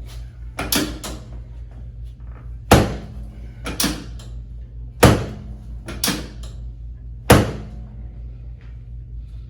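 Chiropractic drop table's drop section being thrust down and snapping onto its stop during a pelvic adjustment: a series of sharp clacks every second or two, some in quick pairs, the three loudest a little over two seconds apart.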